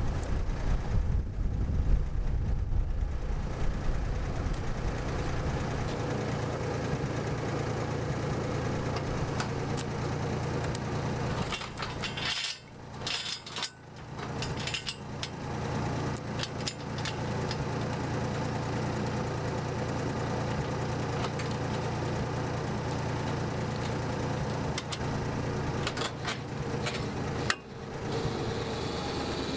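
An engine idling steadily all the way through. Between about 12 and 17 seconds a run of sharp metal clinks and rattles from a steel chain being handled, and a single knock near the end.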